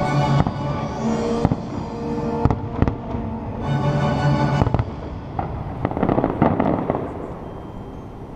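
Aerial firework shells bursting with a string of sharp bangs over the fireworks show's music during the first few seconds, then a burst of crackling about six seconds in, after which the sound dies down.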